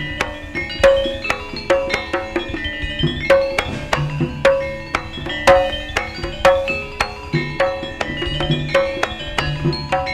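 Javanese gamelan music: kendang hand drums with struck bronze metallophones ringing out a quick, even pattern of notes.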